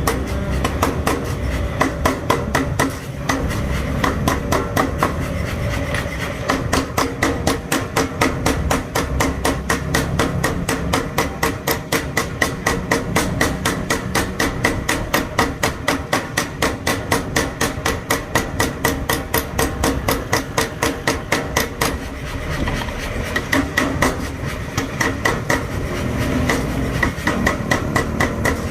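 A 15 kg mechanical power hammer is pounding hot steel in a fast, steady rhythm of about four blows a second, forging a steel rod into a cutter. The rhythm eases briefly a few times.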